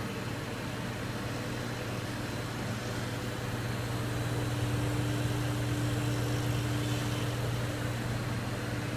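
Running flexographic plate-processing equipment humming steadily: a strong low drone with a fainter higher tone over a hiss of fans, swelling slightly in the middle.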